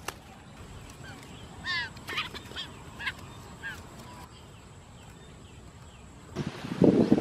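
Quail giving about five short chirping calls over a couple of seconds. Near the end comes a loud rustling of leaves and undergrowth.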